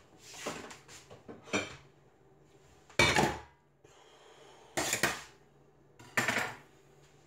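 Dishes and cutlery clattering in about five short bursts, the loudest about three seconds in, over a faint low steady hum.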